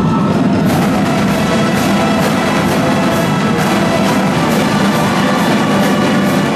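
Marching drumline playing: snare drums, tenor drums and a row of bass drums beating a fast, dense rhythm, loud and steady throughout.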